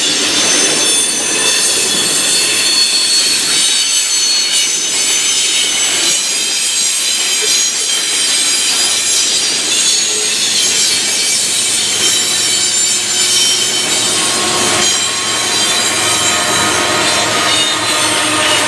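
Freight train cars rolling past, their steel wheels squealing against the rail in several steady high tones over the rumble of the wheels, with lower squeal tones joining about two-thirds of the way through.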